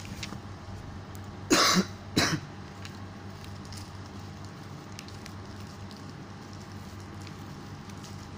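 A person coughs twice, about a second and a half in, the two coughs about half a second apart, over a steady low hum. Faint ticks of the shiny origami sheet being pleated and creased by hand.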